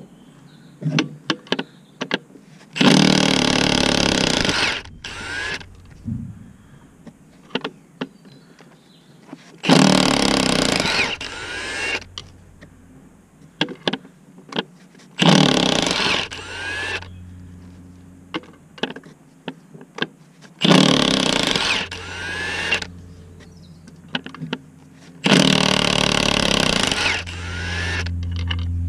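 Cordless impact wrench run in five bursts of about two seconds each, hammering bolts at the clutch and flywheel, with light metal clicks between the bursts. A steady low hum starts near the end.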